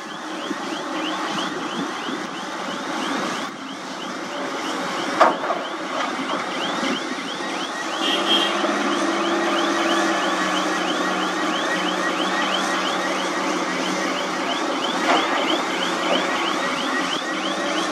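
Komatsu hydraulic excavator's diesel engine running under load as it digs and loads soil into a dump truck, growing louder about halfway through, with a sharp knock twice. A fast, even high chirping, about four short falling chirps a second, runs over it throughout.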